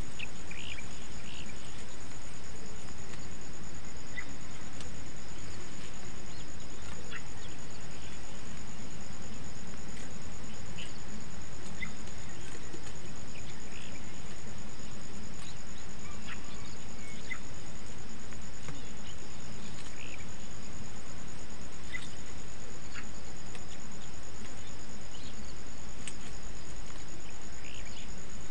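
An insect trilling steadily at one high pitch without a break, with a few scattered short chirps and a constant low rumble underneath.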